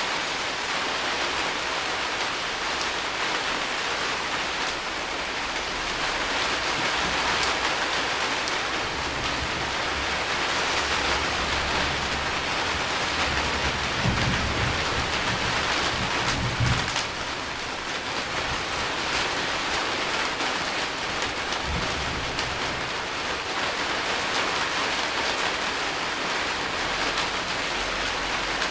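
Steady rain with a low rumble of thunder that builds from about a quarter of the way in, is strongest a little past halfway and stops fairly suddenly; a brief low rumble follows a few seconds later.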